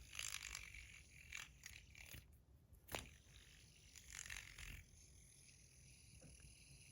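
Faint light scrapes and one sharp click from handling a tungsten fidget spinner, then near silence with a faint steady hum.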